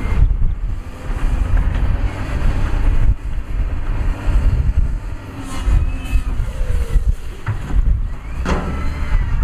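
Heavy diesel earthmoving machinery (a dump truck, then a wheel loader) running with a dense low rumble. There is a short sharp noise about eight and a half seconds in.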